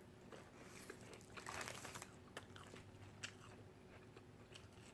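Faint biting and chewing of a breakfast sandwich with egg, ham, tomato and lettuce on bread, with a few soft crunches.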